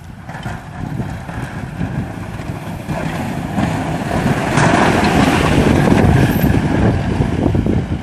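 Pickup truck engine running as its Western V-plow blade pushes snow, loudest for a couple of seconds past the middle, with wind buffeting the microphone.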